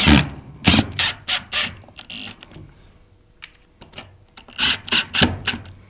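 Milwaukee Fuel cordless impact driver driving wood screws through a hinge into a wooden frame in short trigger bursts: a run of bursts in the first couple of seconds, a pause, then another run near the end.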